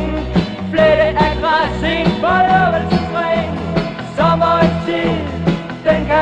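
Band music from a 1970s recording: drums keep a steady beat over a bass line, with a melodic lead line on top.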